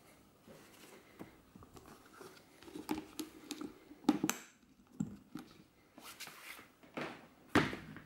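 Hard camera case being handled: a strap dropped in, the lid shut and its metal clasp fastened with a sharp click about four seconds in, then a loud knock near the end as the case is moved.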